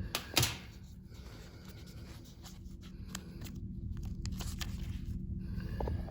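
Pages of an old Bible rustling and crackling as they are handled and turned, with a sharp tick near the start, over a low steady hum.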